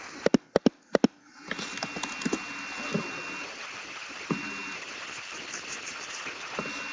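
Six sharp clicks in three quick pairs within the first second, then scattered faint taps and handling noise over a steady high-pitched tone.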